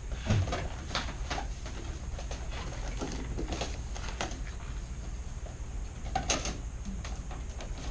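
Scattered handling noises as balloons and tape are worked into a tower: rustling with light taps and clicks, a dull thump just after the start and a sharper knock about six seconds in.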